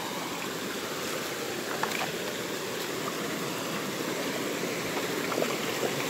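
Shallow rocky stream flowing and splashing over stones in a small cascade, a steady rush of water.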